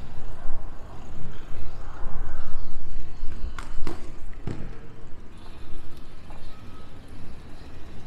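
Wind rumbling on the microphone while cycling, with three sharp knocks about halfway through.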